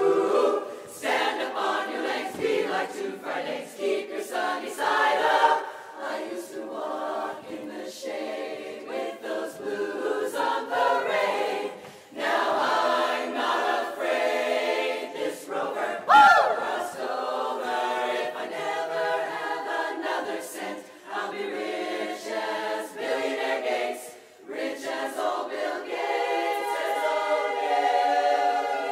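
Women's barbershop chorus singing a cappella in close harmony, with one voice sliding sharply upward about sixteen seconds in. A few seconds before the end the chorus settles on a long held chord.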